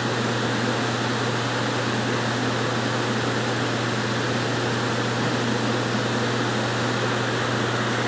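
Commercial kitchen exhaust hood fan running: a steady rushing noise with a constant low hum.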